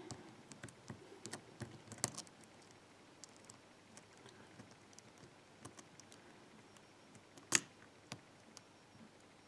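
Faint, irregular ticks and clicks of a hook pick lifting and probing the pins inside a Ruko oval pin-tumbler cylinder held under light tension, with a sharper click about seven and a half seconds in.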